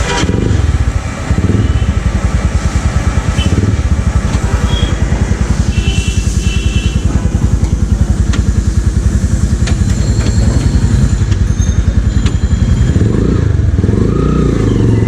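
Taro GP One 150cc motorcycle engine idling, a steady, rapid low exhaust beat.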